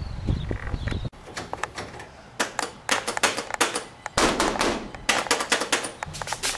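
A soda vending machine being slapped and banged by hand on its front panel: a quick, uneven series of hard knocks that starts about a second in.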